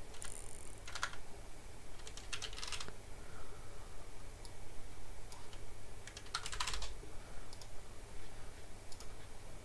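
Typing on a computer keyboard in a few short bursts of key presses, with single key taps scattered between them.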